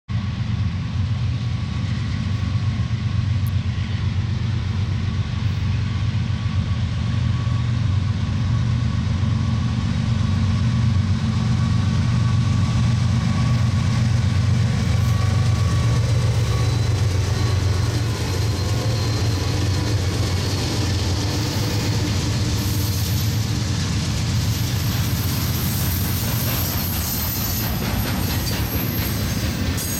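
Norfolk Southern diesel locomotive of an intermodal freight train running with a deep, steady engine drone. After about 18 seconds the noise of the rolling train cars and wheels grows, with a faint thin squeal near the end.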